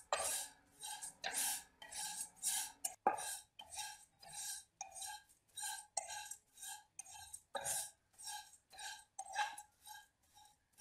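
Slotted spatula stirring dry rolled oats as they toast in a nonstick pan: an even rhythm of short scraping, rustling strokes, about two to three a second. Twice the spatula knocks sharply against the pan.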